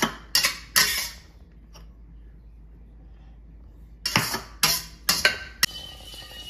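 A utensil clinking and scraping against a wok and ceramic bowls as stir-fried filling is scooped out: three sharp clinks at the start, a quiet gap of about three seconds, then four more clinks, the last one ringing on.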